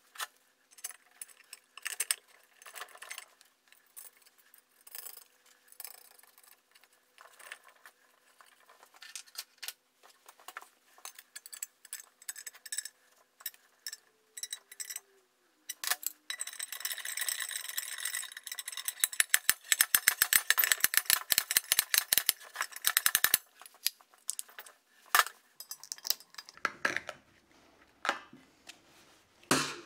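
Steel tools clinking and knocking against a gearbox's aluminium casing as a home-made bearing puller, threaded rods, a steel plate and nuts, is set up and tightened with a spanner to draw out a bearing outer race. About halfway through comes a dense run of rapid clicks lasting several seconds.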